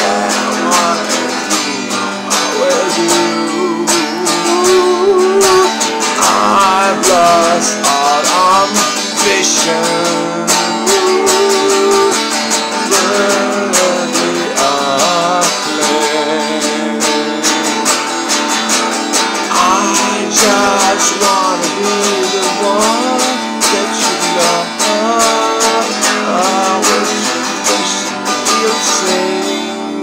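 A man singing while strumming a guitar, the chords ringing steadily under his wavering sung melody.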